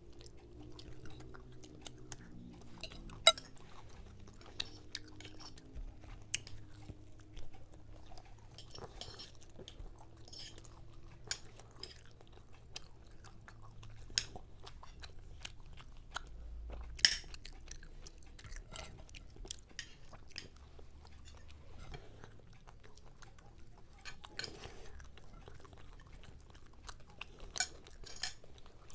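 Close-miked eating: chewing and crunching of fried Mughlai paratha and chicken chop, with scattered clinks of spoons and forks against the plates. Two sharp clicks stand out, about three seconds in and again at about seventeen seconds, over a faint low hum.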